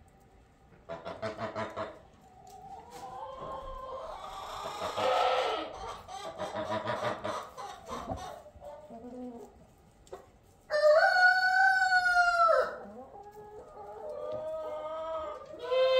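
Barnyard chickens clucking and calling, with a rooster crowing once, long and loud, about eleven seconds in.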